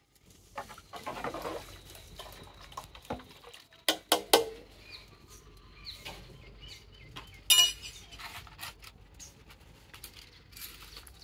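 A steel ladle clinking against steel cooking vessels: a few sharp metallic clinks, the loudest pair about four seconds in and a ringing one a little past halfway, with softer handling noises between.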